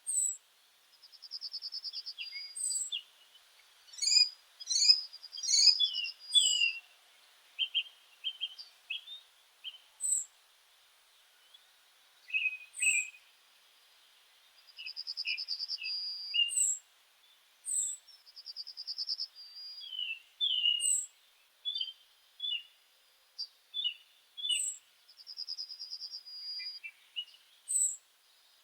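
Several meadow songbirds singing together. A buzzy trill of about a second and a half repeats every few seconds over high, thin notes and scattered chirps.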